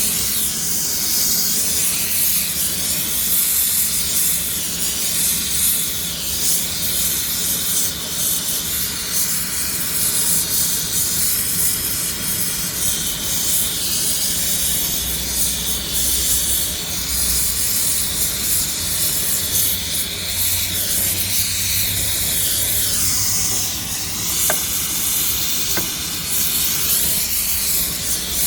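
Electric arc welding: the arc hisses and crackles steadily without a break, with a little lower hum from the welding set.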